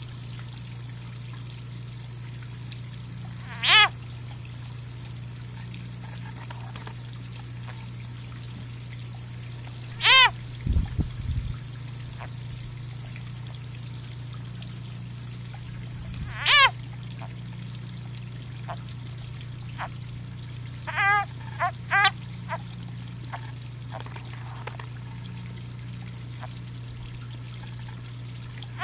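Leopard frog giving distress screams while seized and being swallowed by a ribbon snake: three loud, short, cat-like cries about six seconds apart, then a few shorter, fainter ones later on.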